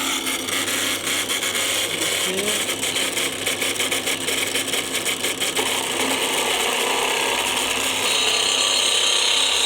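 Drill press converted to a lathe running, its motor humming steadily while a tool scrapes the spinning wooden workpiece; the scraping gets louder over the last two seconds.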